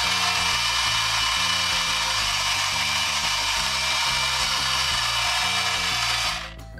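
Pink toy toilet flushing: a loud, steady rushing hiss that cuts off near the end.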